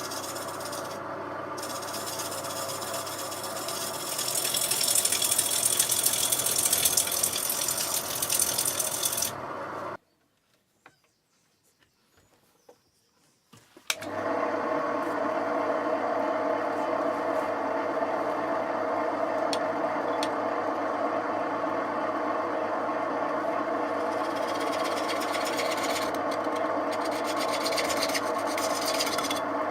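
Record CL3 wood lathe running while a gouge cuts a wet green sycamore bowl blank, with a louder scraping from about four to nine seconds in. The sound drops out suddenly for about four seconds, then the lathe runs steadily again.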